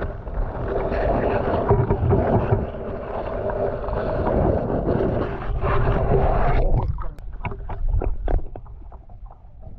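Muffled underwater rumble and water noise from a GoPro submerged in a lake, the housing moved through water and weeds. About two-thirds through it drops suddenly to quieter scattered small clicks and taps.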